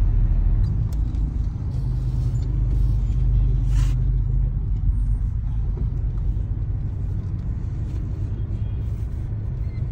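Steady low rumble of the van's engine and road noise, heard from inside the cabin while it moves slowly in traffic. A brief hiss comes about four seconds in.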